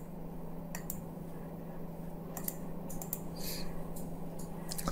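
A few irregular clicks and taps on a computer keyboard, over a steady low hum.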